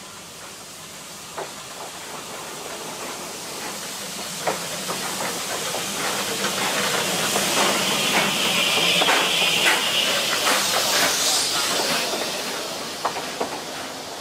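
Narrow-gauge steam tank locomotive running slowly past at close range, its steam hiss growing loud as the engine draws alongside and then fading. Its carriages follow, with scattered knocks and clicks from wheels and couplings.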